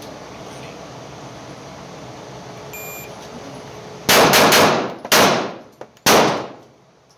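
Shot timer beeps about three seconds in. Roughly a second and a half later an HK45C .45 ACP pistol fires a fast string of four shots, followed by one more loud bang about a second later.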